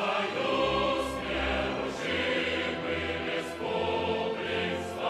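Choral music: a choir singing held chords over a low line that moves every second or so.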